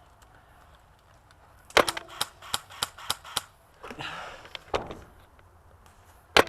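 Airsoft gunfire. There is a sharp shot a little under two seconds in, followed by a quick irregular run of clicks. Single sharp shots come near five seconds and again near the end.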